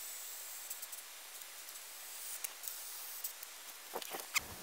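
Faint, scattered light clicks and ticks over a steady hiss, from a cordless caulk gun and a tube of construction adhesive being handled.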